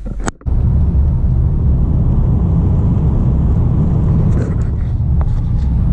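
Steady low rumble of engine and tyre noise inside a car's cabin as it drives along the highway, starting abruptly about half a second in.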